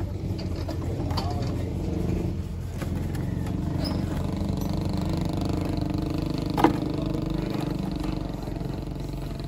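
An engine or motor running steadily, with a single sharp knock about two-thirds of the way through.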